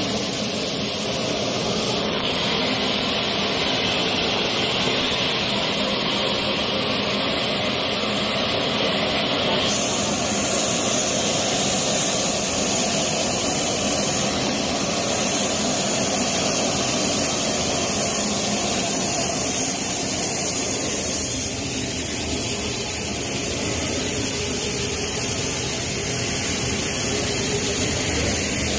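Steady jet-engine noise from a transport aircraft on the ground: a continuous rush with a high whine over it. The tone shifts slightly about ten seconds in.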